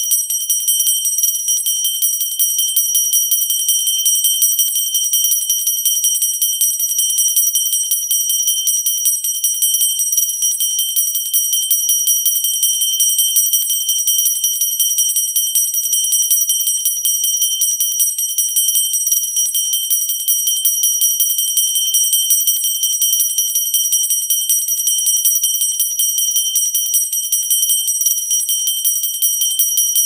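Small handheld pooja (worship) bell shaken continuously, its clapper striking rapidly so the high, clear ringing never dies away.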